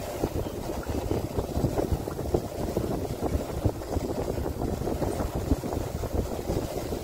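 Wind buffeting the microphone of a moving motorbike, a steady low rumble with irregular gusts, mixed with the noise of riding on a wet road.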